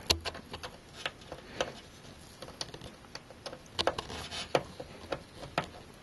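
Scattered faint plastic clicks and taps as front-panel cable connectors are handled and pushed onto motherboard headers inside a computer case.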